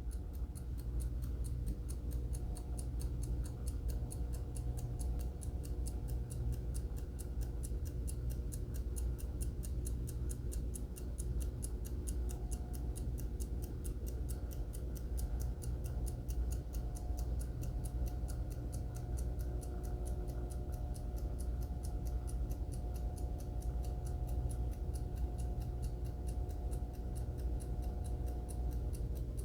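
Seiko DiscMate hand-wound mechanical alarm clock ticking with a rapid, even beat, over a steady low hum.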